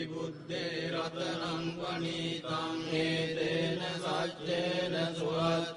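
Buddhist pirith chanting, recited in a steady, repeating chant over a continuous low drone.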